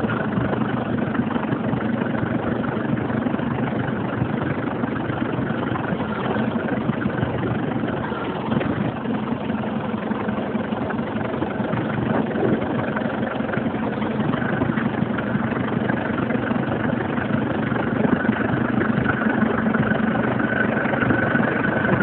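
Ford 755B tractor backhoe's engine running steadily while the backhoe boom and arm are worked, with a higher whine growing stronger near the end.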